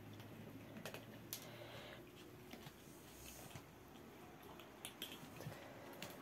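Near-silent room with a few faint, irregular clicks and taps.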